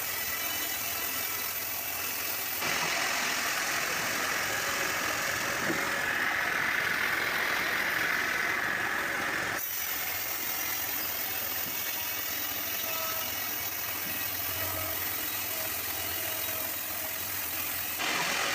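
Sawmill machinery running steadily with an engine-like drone. The sound changes abruptly three times, and the middle stretch carries a brighter hiss.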